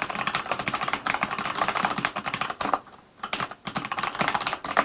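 Rapid typing on a mechanical keyboard with Cherry MX switches, a fast run of key clicks that pauses briefly just past halfway.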